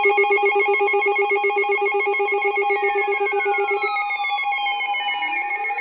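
Several electronic emergency alert tones sounding over one another: a fast-pulsing low beep, warbling two-note trills higher up, and falling pitch sweeps that join about halfway through. The pulsing beep stops about four seconds in. The alert tones announce an incoming severe thunderstorm warning.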